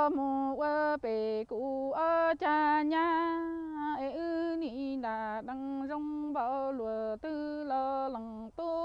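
A woman's voice singing unaccompanied in a Hmong chanted style: phrases of long held notes that step up and down within a narrow range, broken by short pauses for breath.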